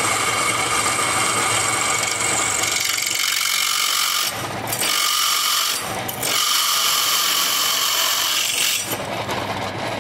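A bench drill press boring into hard weld metal on an ignition flywheel, with a steady, high-pitched cutting noise. The noise breaks off briefly twice mid-way and stops about nine seconds in. The metal is hard, which the machinist puts down to flaws in the weld.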